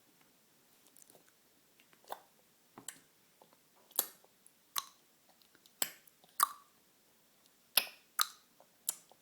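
A baby making clucking noises with his tongue: about nine sharp clicks, irregularly spaced, starting about two seconds in.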